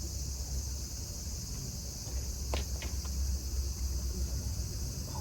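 A steady, high-pitched chorus of insects shrilling, with a low rumble underneath and three quick light clicks about halfway through.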